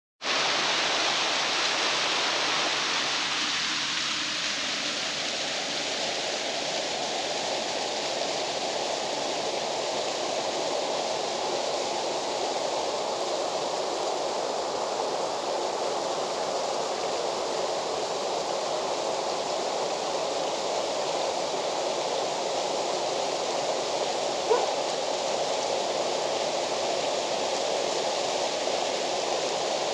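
Waterfall rushing steadily. A single brief, higher sound cuts in once, about 24 seconds in.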